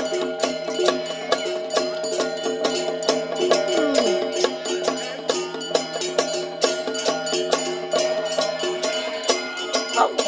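Traditional folk music: steady, held wind-instrument tones over a regular beat of percussion strikes, about three or four a second.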